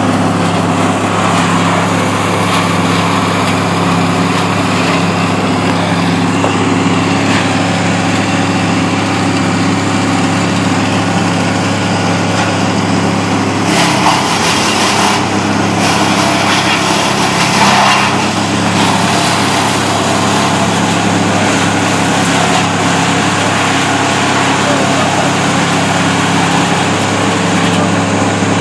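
Steady engine drone from a tree-cutting crew's power equipment running throughout, with louder rough surges about halfway through, twice, as the machine works through wood under load.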